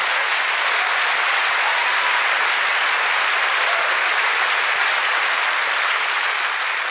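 Audience applauding steadily after a comedy punchline.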